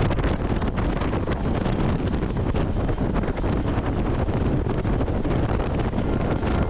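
Steady wind rushing over the microphone of a fishing boat running at speed across open sea, with the boat's engine and water noise blended beneath it.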